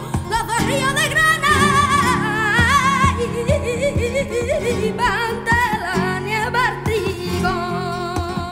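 Flamenco song from a 1961 EP: a boy's high voice sings long, wavering, ornamented lines over plucked acoustic guitar.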